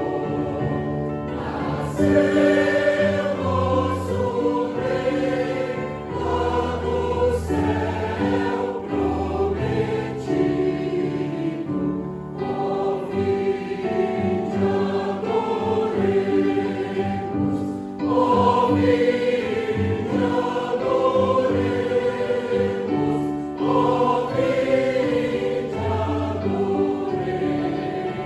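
Mixed choir singing a traditional Christmas song with accompaniment, the voices holding long notes in a flowing, phrased melody.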